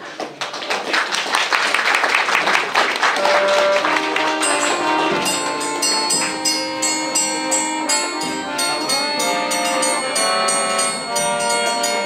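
A hall audience applauding for the first few seconds, then music with brass instruments comes in and plays on.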